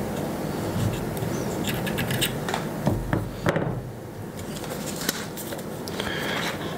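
Light clicks, taps and scrapes of hands working with small tools: ceramic-tipped tweezers tucking cotton wick into the coils of a rebuildable dripping atomizer, then being set down on the tabletop. A steady low hum runs underneath.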